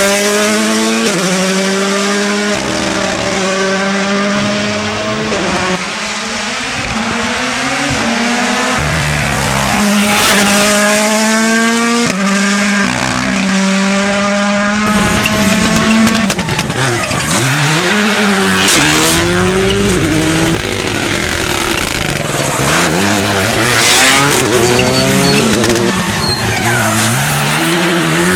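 Rally car engines revving hard, the pitch climbing and falling again and again as they run up through the gears and back off between them. The sound changes abruptly about halfway through as another car takes over.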